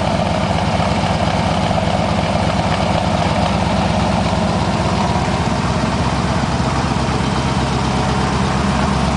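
A 1968 Corvette's 1972 LT-1 350 small-block V8 idling steadily through side exhaust, with a fast, even low rumble.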